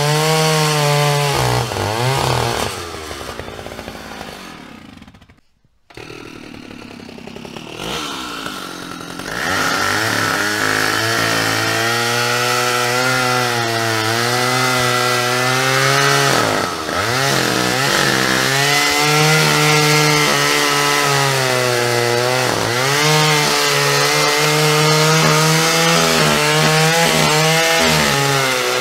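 Quad bike engine running under way, its pitch rising as it accelerates and dipping at each gear change. About five seconds in it falls away almost to nothing, then picks back up and revs on.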